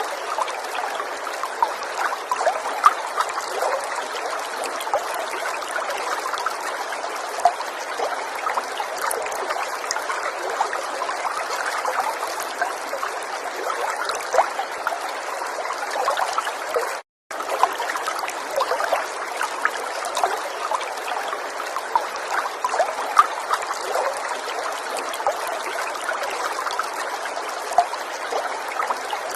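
A river's water trickling and babbling steadily, full of small splashes. About 17 seconds in, the sound cuts out completely for a split second, then resumes.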